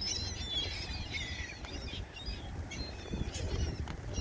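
Gulls calling in clusters of short, high, squealing cries over a feeding flock of gulls and pigeons.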